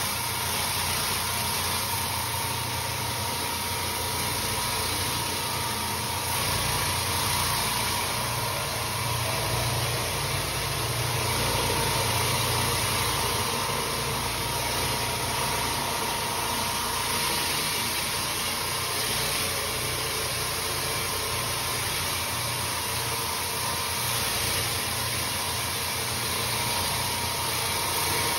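XL Pro floor scrubbing machine running steadily, its motor giving a steady hum with a faint whine while its pad scrubs wet, soapy floor tile.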